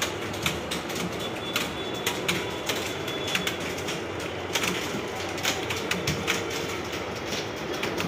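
A roomful of desktop computer keyboards being typed on at once: a dense, continuous clatter of overlapping keystrokes.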